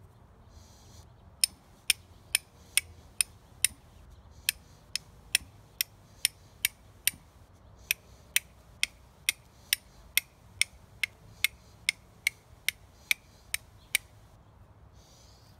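Flint and steel being struck to throw sparks onto char cloth: a long series of sharp, bright clicks, about two strikes a second, in three runs with short pauses.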